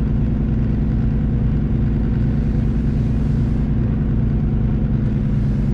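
Semi truck's diesel engine running steadily at an even pitch, heard from inside the cab as the rig moves slowly through a turn.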